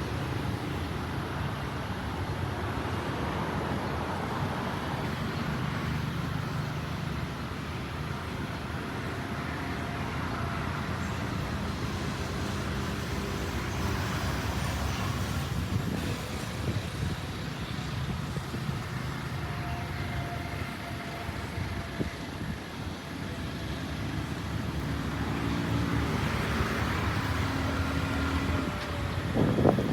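Steady road traffic noise, with vehicle engines humming past.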